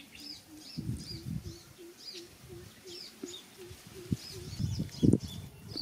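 Small birds chirping outdoors, short high calls repeating about twice a second, over a low call repeated about three times a second. A few soft knocks from hands and a knife being handled, the loudest a thump about five seconds in.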